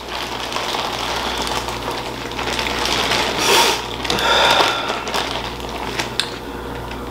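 Plastic seafood-boil bags crinkling and rustling as gloved hands dig through king crab legs and shells, with a louder rustle about three and a half seconds in and a few sharp snaps near the end.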